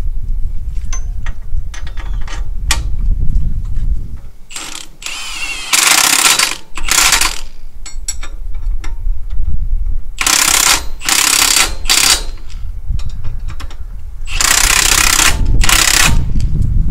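Cordless impact wrench hammering bolts in short bursts of under a second, mostly in pairs: the first pair about six seconds in, more around ten to twelve seconds, and a last pair near the end. This is the wrench running the new bolts that fasten a front bumper onto a tractor's frame.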